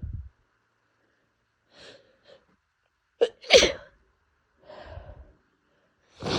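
A woman sneezing in an allergy fit, set off by pollen: short in-breaths, then one loud sneeze about three and a half seconds in, a breath after it, and the next sneeze starting at the very end.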